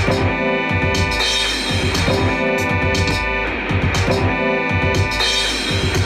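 Instrumental beat: a short melodic loop over bass and drums, repeating about every two seconds.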